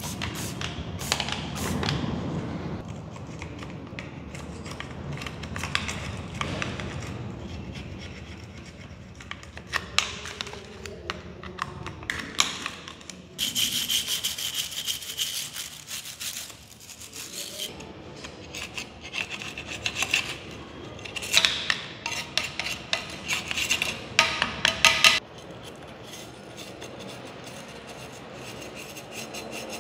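Scrubbing and scraping grime off a motorcycle engine's casings with a scouring sponge, in runs of quick rubbing strokes. A trigger spray bottle squirts cleaner at the start.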